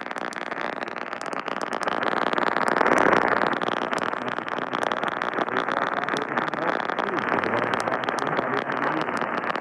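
Weather radio receiver static: a steady hiss peppered with crackling clicks, swelling briefly about three seconds in, with a broadcast voice too buried to make out.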